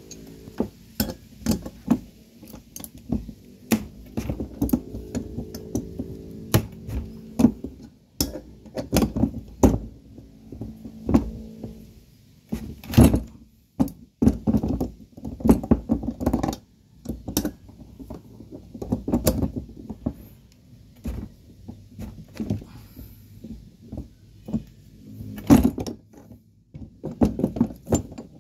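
Irregular metallic clanks, knocks and clicks of hand tools and car parts being handled during repair work, at an uneven pace with louder knocks now and then.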